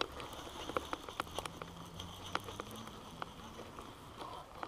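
Baitcasting reel being cranked to bring in a hooked bass, with scattered light clicks and ticks, and a faint low hum for a couple of seconds in the first half.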